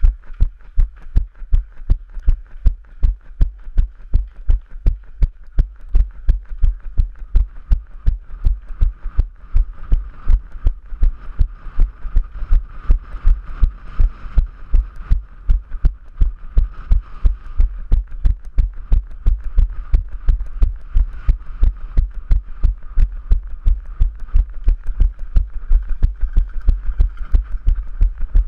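Running footfalls on stone paving, picked up through a head-mounted GoPro as heavy low thuds at a steady pace of about three a second.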